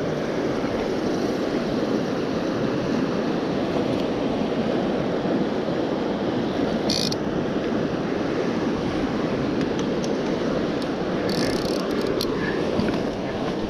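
Steady rush of a fast, shallow river running over rocks, with a few brief high clicks about seven seconds in and again near the end.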